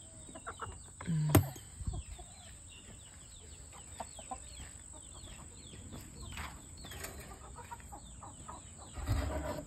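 Appenzeller Spitzhauben chickens clucking and calling, many short falling calls overlapping, with a single sharp knock about a second in.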